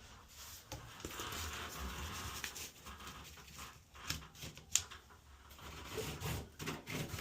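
Irregular light scraping and handling noises, with one sharp click about two-thirds of the way through.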